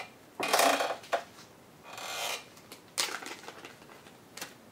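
A small clear plastic bag rustling as it is handled and opened by hand, in three short bursts with a couple of light clicks.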